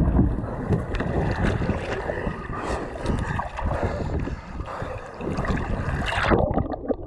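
Ocean water splashing and sloshing against a capsized plastic kayak close to the microphone, with wind buffeting. About six seconds in, a wave washes over the microphone and the sound turns dull and muffled.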